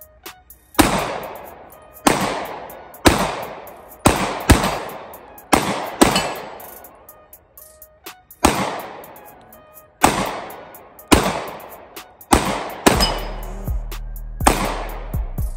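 9mm pistol fired shot after shot at a steady pace, about one round a second and sometimes two in quick succession, each crack trailing off in a long echo.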